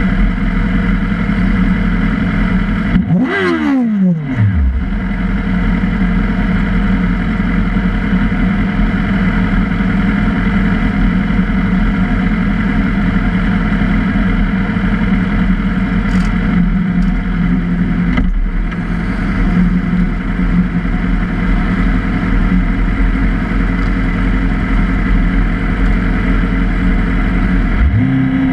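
Sport motorcycle engines idling steadily and loudly close by. About three seconds in, one throttle blip revs up and falls quickly back to idle, and near the end an engine revs up again.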